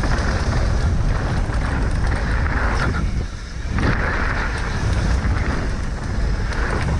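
Wind rushing over the microphone and a Specialized Enduro mountain bike rumbling and rattling down a rough dirt trail at speed. There is a short lull about three seconds in before the noise comes back.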